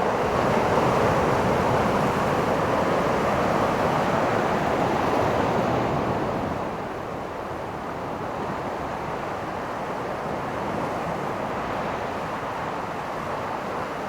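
Ocean surf breaking and washing up the beach, with wind on the microphone. The wash is loudest in the first half and eases off about halfway through.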